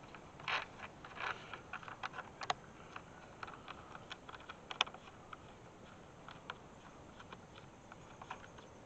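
Light, irregular clicks and taps as a stripped copper ground wire and a small hammer are worked against the ground terminal of a solar electric-fence charger, the wire being hooked around the post and tightened on.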